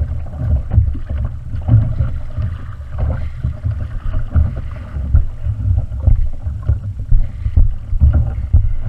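Wind buffeting the microphone in gusts, a heavy low rumble, with water slapping and sloshing against a kayak hull on open sea.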